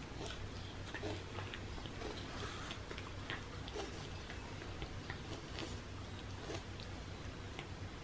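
A cat eating a soft Churu treat off a paper plate: faint, irregular little clicks and smacks of licking and chewing, over a low steady hum.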